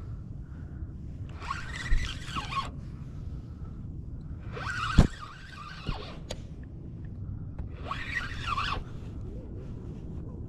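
Spinning reel cranked in short bursts of about a second, every few seconds, as line is won back on a hooked fish, over a steady low rumble of wind on the microphone. A sharp knock about five seconds in.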